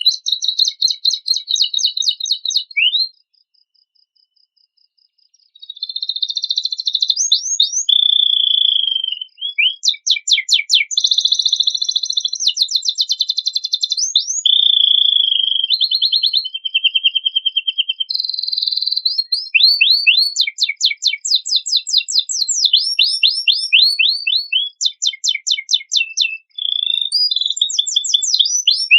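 Domestic canary singing a fast, varied song of rapid trills and quick repeated high notes, with other birds' phrases worked into it. The song stops dead for about two seconds shortly after the start, then carries on without a break.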